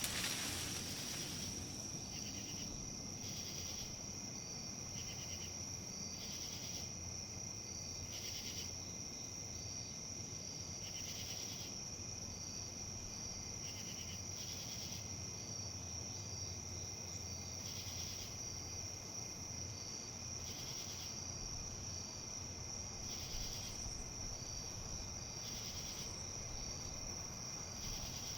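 A steady, high-pitched insect trill, with short chirps recurring every second or two, over a low outdoor rumble. Right at the start, a brief rush of leaves rustling in a gust of wind fades out within the first second or two.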